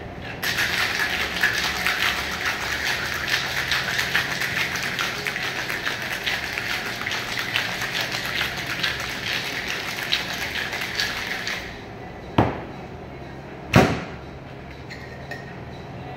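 Ice rattling inside a Boston shaker, a metal tin with a mixing glass fitted into it, shaken hard for about eleven seconds to chill a cocktail. The shaking stops, then two sharp knocks about a second and a half apart as the shaker is struck to open it.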